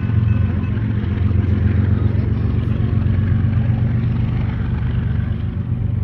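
Freight train rolling past, with a steady low diesel locomotive drone over the rumble of wheels on the rails.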